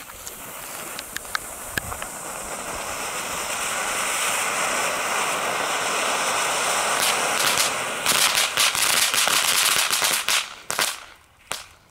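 Two Lesli Vegas Volcano ground fountains burning, each with 7.5 g of pyrotechnic composition. Their spark spray makes a steady hiss that grows louder over the first few seconds. From about eight seconds in comes a stretch of rapid crackling pops, and the sound fades out near the end as they burn out.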